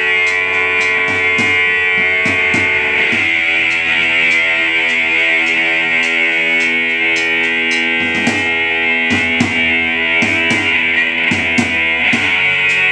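Rock band playing live with amplified electric guitars and a drum kit: sustained guitar chords over a steady cymbal beat. The chord changes about three seconds in, and bursts of drum hits come at about two seconds and again past the eight-second mark.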